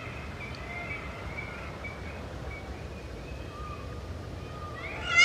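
Peafowl calling outdoors: faint, thin calls over a low background rumble, then a loud peacock call that starts just before the end.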